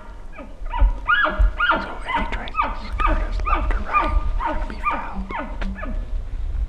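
Bull elk chuckling: a run of about a dozen short grunting calls, each dropping in pitch, about two a second, fading out near the end.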